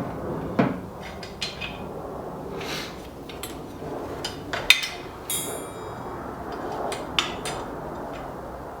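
Steel trunk hinges clanking and knocking as they are handled and laid on a hard floor: a string of sharp metal knocks, the loudest about halfway through, and a brief high metallic ring just after it.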